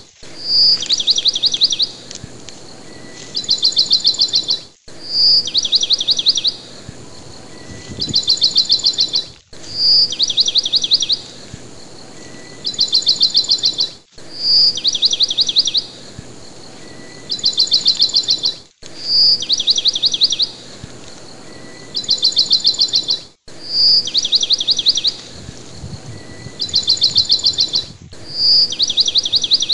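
Birdsong, a clear high note followed by two fast chirping trills, repeating identically about every four to five seconds with a brief dropout between repeats: a short recording of birdsong played in a loop.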